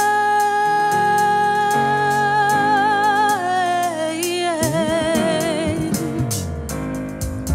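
Live band of keyboard, electric guitar and drums playing under a female singer, who holds one long note, then lets it fall with vibrato about three and a half seconds in. A hi-hat ticks steadily throughout.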